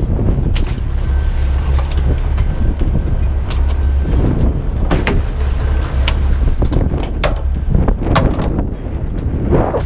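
Wind rumbling on the microphone aboard a small open fishing boat, with scattered sharp knocks and clatter as gloved hands handle fish in plastic buckets on the deck.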